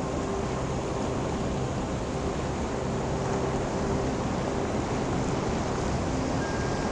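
Waves washing over a rocky shore: a steady rush of surf and foam, with no sudden breaks.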